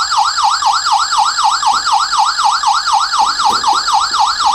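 Wisen burglar alarm siren sounding in alarm, a loud, fast warbling tone that sweeps up and down about five times a second. It was set off by tripping the door magnetic sensor.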